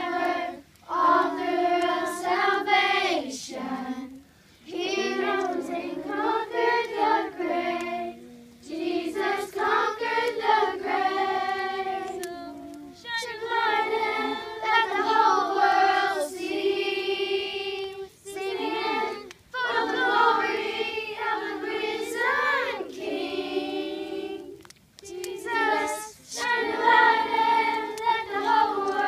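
A group of children singing a song together, phrase after phrase with short breaks for breath between lines.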